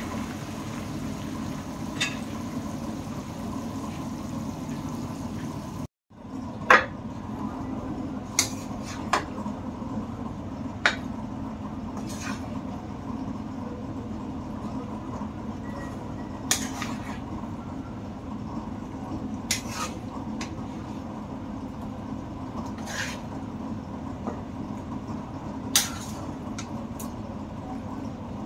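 Sharp, scattered clinks of a cooking utensil against a pot or dish, about a dozen, spaced a second to several seconds apart, over a steady low hum. The hum cuts out for a moment about six seconds in.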